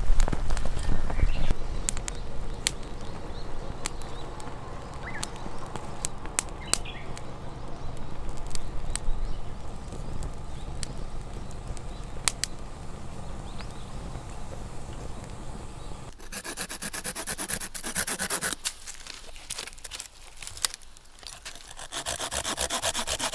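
Rubbing and scraping on wood, with scattered sharp clicks. About two-thirds of the way in it changes to a denser, brighter rustling, which returns near the end.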